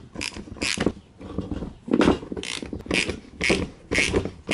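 Hand tool worked on a motorcycle front brake caliper in short repeated metallic strokes, about two a second, as the caliper's pins are lined up and fitted.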